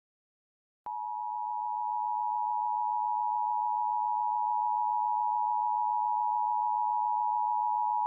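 Emergency Alert System attention signal: the two-tone 853 Hz and 960 Hz alarm tone. It starts abruptly about a second in and holds steady, the signal that marks the start of an emergency alert broadcast.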